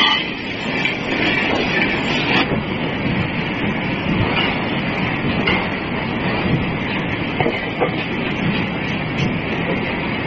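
Steady rumbling and rattling din of forge-shop machinery running, with a few faint metallic clanks; no heavy hammer blow lands.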